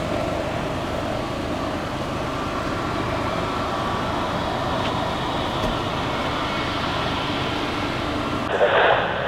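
A steady rushing drone with faint hum tones running through it. Near the end a louder burst of narrow-band radio voice cuts in from the air-traffic-control scanner.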